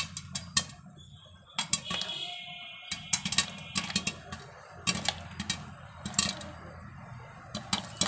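Popcorn kernels popping in hot oil in a covered kadai: sharp, irregular pops, some coming in quick clusters, over a low steady hum.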